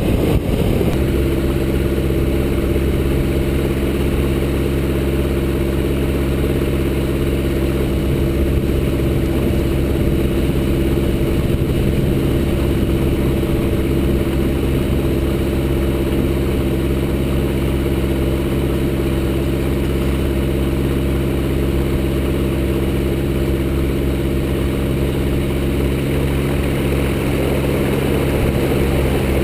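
Evektor SportStar light sport aircraft's Rotax 912 flat-four engine and propeller running steadily at low taxi power, an even drone. A broader rush of air noise dies away about a second in.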